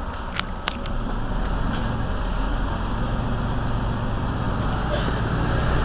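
Mercedes-Benz Citaro C2 Euro 6 city bus's diesel engine idling, a steady low rumble, with two sharp clicks about half a second in.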